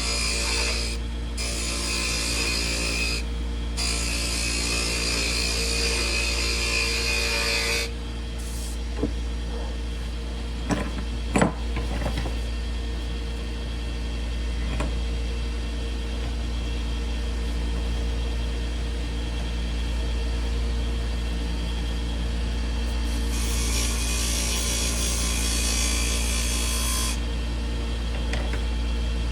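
Wood lathe running with a steady hum while a tool scrapes against a spinning curly cherry blank in two spells, one near the start and one near the end, with a few sharp knocks in between.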